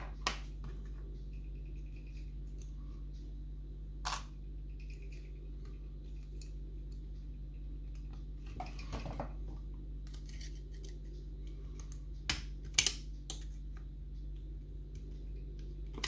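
Scattered small metallic clicks and taps of brass levers and a thin tool being worked inside a WMS Merchant lever mortice lock case, with a cluster of sharper clicks about twelve to thirteen seconds in, as a stiff lever is eased out of the stack. A steady low hum sits underneath.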